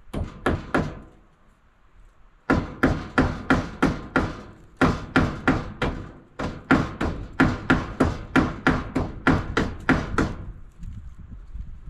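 Hammer blows on a wooden barn wall: three quick strikes, a short pause, then a long steady run of about three blows a second that stops shortly before the end.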